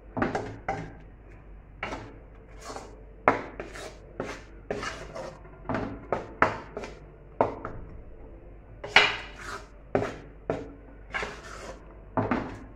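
Metal spoon scraping and knocking against the sides of an aluminium pot while stirring a thick besan (chickpea flour) mixture cooking in ghee, in uneven strokes about twice a second.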